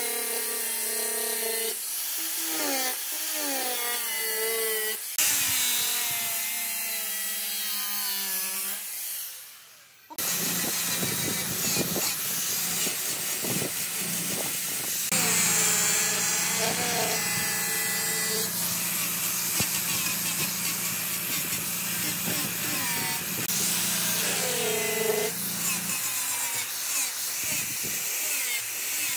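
Angle grinder with a sanding disc sanding weathered boat-wood planks, its motor whine wavering in pitch as the disc is pressed and moved over the wood. It drops out briefly about ten seconds in, then resumes.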